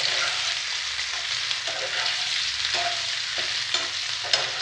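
Steamed semolina balls sizzling in hot oil in a frying pan while being stirred and turned over, the spoon scraping and knocking against the pan every second or so, with one sharper knock near the end.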